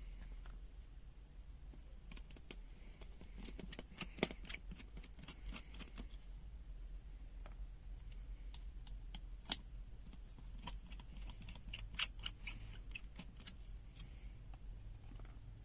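Scattered small clicks and taps of plastic parts and tools being handled while a pen-type digital multimeter's case is taken apart, over a low steady hum.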